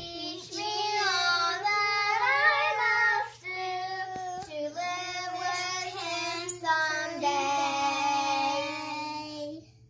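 Young girls singing a song together in high children's voices, unaccompanied, with long held notes.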